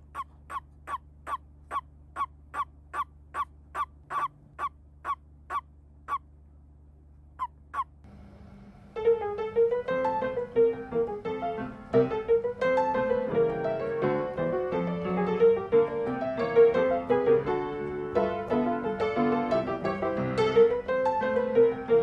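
A toad calling: a quick run of short, evenly spaced croaks, about three a second, then after a short gap two more. Piano music starts about nine seconds in.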